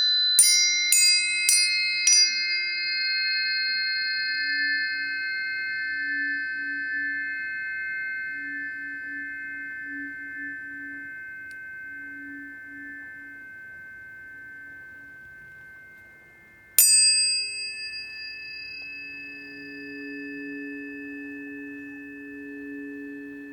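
Tuning forks struck in quick succession, four strikes in the first two seconds, their clear high tones ringing on and slowly fading. Another strike about seventeen seconds in starts a fresh ring over a lower steady tone.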